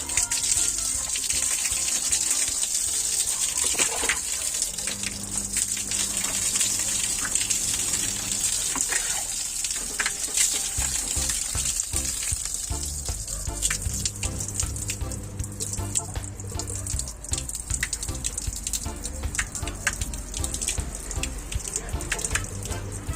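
Water spraying with a steady hiss, as in washing down a window air conditioner during servicing; the hiss grows softer about halfway through. Background music plays underneath.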